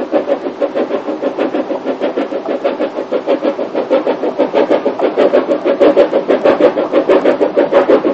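Small narrow-gauge steam tank locomotive working along, its exhaust beating steadily at about four to five beats a second and growing louder as it nears.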